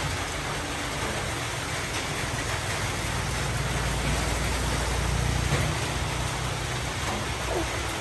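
Steady background noise with a low rumble that swells around the middle. A faint, short rising squeak near the end.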